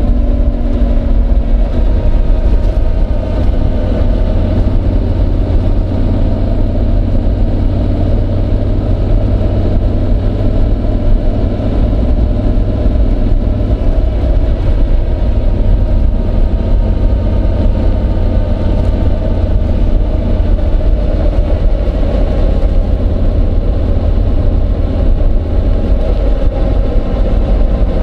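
Honda NC750X motorcycle's 745 cc parallel-twin engine running at fairly even revs under way, its pitch drifting only slowly, over a dense low rumble.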